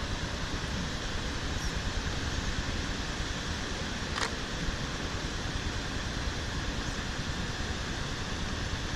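Steady, even outdoor rushing noise, with one faint click a little over four seconds in.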